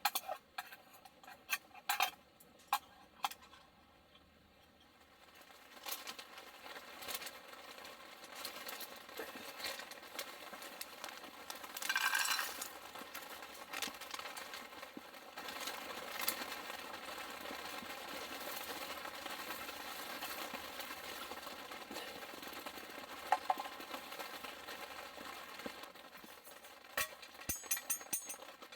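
Camp cooking sounds: utensils and cookware clicking and clinking, several sharp knocks in the first few seconds, then a steady hiss that builds up about six seconds in and carries on, with scattered clinks over it.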